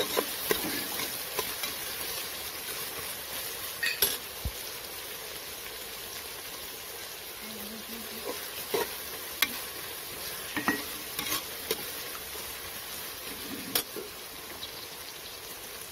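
Sliced onions sizzling as they are sautéed in hot oil in a pressure cooker, stirred with a steel spoon that clinks and scrapes against the pot several times.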